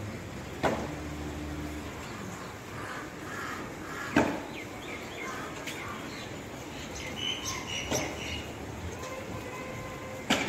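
Outdoor town ambience with birds chirping and calling, a few sharp knocks about four seconds apart, and a brief low engine hum about a second in.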